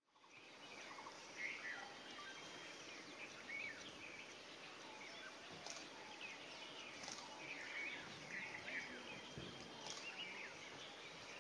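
Quiet forest ambience with many faint, scattered bird chirps and calls, and a few soft clicks.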